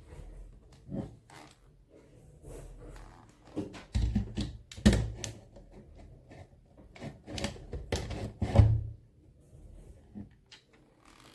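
Handling noises: a run of irregular knocks, thumps and clicks from objects being picked up and set down, loudest and busiest in the middle of the stretch.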